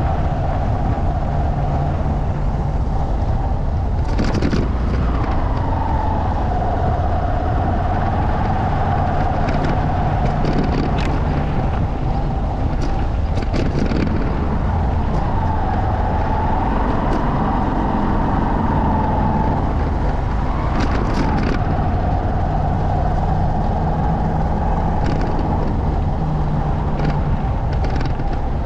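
Motorcycle engine running along a rough dirt track, its pitch rising and falling a few times with the throttle, over a steady low rumble. Scattered sharp knocks and rattles from bumps in the track.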